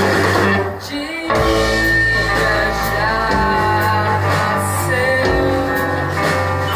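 A live band playing amplified music. It drops out briefly just before a second in, then comes back with a sung vocal over the band.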